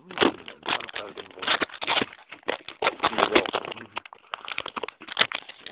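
Irregular crackling, scraping and knocking, several bursts a second: handling noise from a phone rubbing against the foam wing of a Twinstar II model aeroplane.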